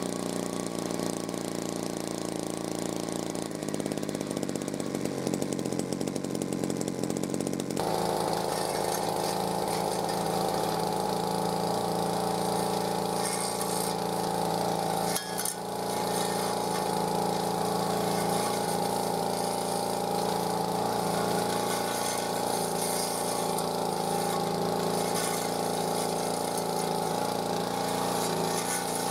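Old brush cutter's small two-stroke engine running steadily; about eight seconds in it picks up to a higher, louder speed as the spinning blade cuts through weeds, with one short dip midway.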